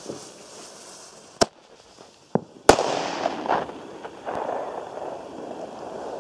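Firecrackers going off: a sparking fuse hisses, then a sharp bang about a second and a half in and a louder bang just under three seconds in, followed by a rumbling echo that dies away over a few seconds.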